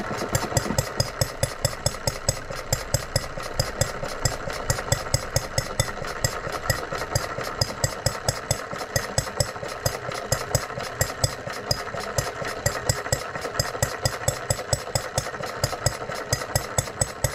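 Model hot bulb engine with electric ignition running on its own, firing in a quick, even beat of sharp knocks and shaking the bench.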